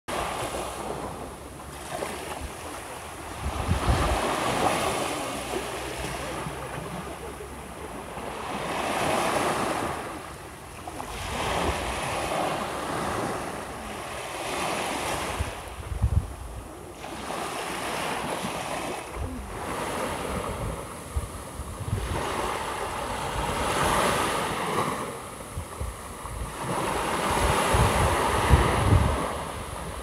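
Small waves of the Seto Inland Sea breaking on a sandy beach and washing up the sand, swelling and fading every few seconds. Occasional low gusts of wind buffet the microphone.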